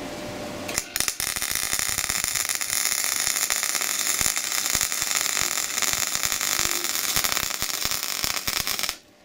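Wire-feed MIG welder arc crackling steadily as it lays a weld on a square steel tube joint. The arc starts about a second in and stops abruptly near the end.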